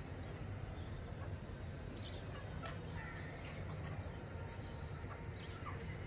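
Birds calling in a few short calls, about two seconds in and again near the end, over a steady low background rumble.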